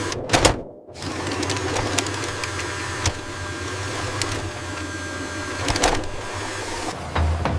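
A machine running with a steady mechanical whir and low hum, with scattered clicks and knocks; the sound cuts out abruptly for a moment just before a second in, then resumes.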